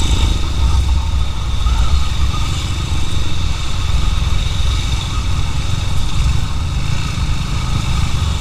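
Motorcycle engine running, with a steady heavy low rumble.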